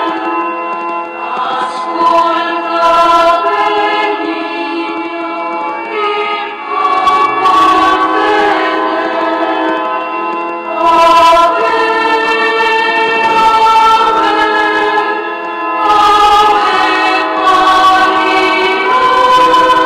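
Voices singing a slow Marian hymn together as a choir, holding long notes that change every second or two.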